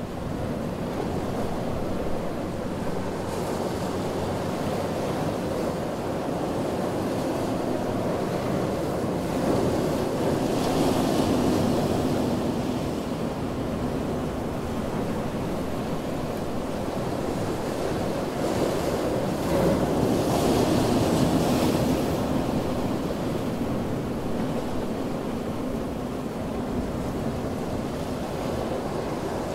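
Ocean surf: waves washing steadily onto a beach, with two bigger waves breaking louder about ten and twenty seconds in.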